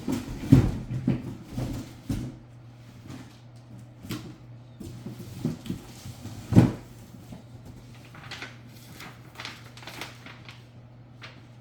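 Knocks and clunks of lawn mower parts being handled and pushed into place during assembly, with several knocks in the first two seconds and the loudest about six and a half seconds in, then lighter clicks and rattles.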